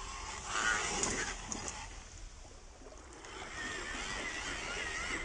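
The small electric motor and gears of an MN99S 1/12-scale RC Land Rover Defender 90 whining as it drives over wet sand. A brief rush of noise comes about half a second in, and a steady, wavering whine runs through the second half.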